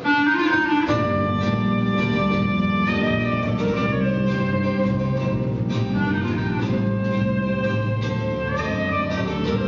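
Live acoustic band playing an instrumental passage: a clarinet holds long melody notes that bend between pitches, over flamenco guitar and double bass.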